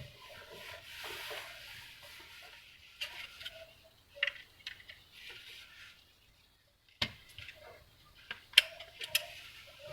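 Faint handling noise and scattered light clicks of hands working with a TP-Link TL-WA7510N wireless unit and its cables as it is powered on, with short silent gaps between the clicks.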